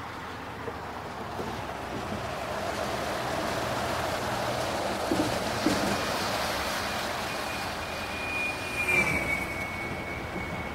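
Steady rushing noise like traffic or surf, with a few soft knocks and a thin high tone that slides slightly downward near the end: the ambient sound-effect intro of a rap track, before the beat and vocals come in.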